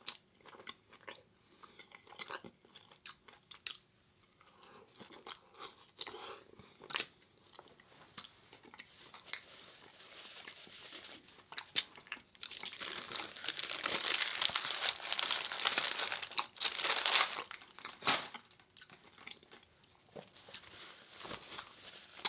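Close-up chewing and crunching of crispy fried tortilla elephant ear bites. Scattered small crunches build into a louder, dense stretch of crunching a little past halfway, then thin out again.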